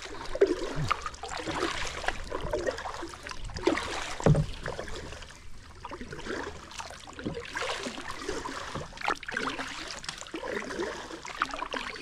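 Kayak paddle strokes: the double-bladed paddle dipping and pulling through the water, with splashes and drips off the blades, and one low thump about four seconds in.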